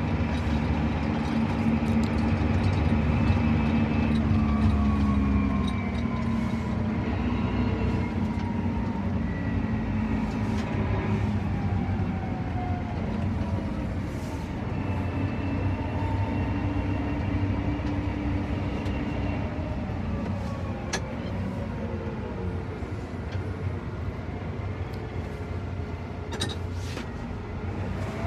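John Deere 8RX 410 tracked tractor driving on the road, heard inside the cab: a steady low drone from the engine and tracks, with whining tones that slide down and back up as the speed changes, easing slightly after about five seconds.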